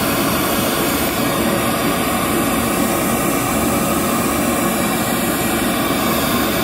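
Steady, loud hiss of a noise test signal from a loudspeaker, used to measure the microphones' frequency response on a real-time analyser.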